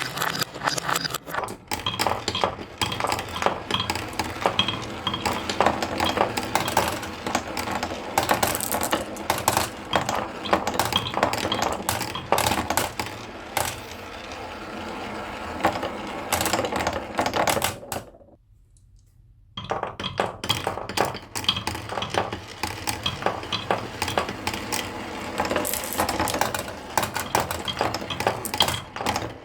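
Many marbles rolling and clattering down a wooden HABA marble run in a dense, irregular stream of clicks and rattles. The sound stops for about a second and a half around 18 s in, then picks up again.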